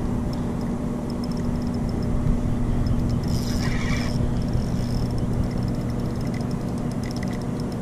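Steady low hum of a boat motor running, with faint ticking and a brief hiss about three and a half seconds in.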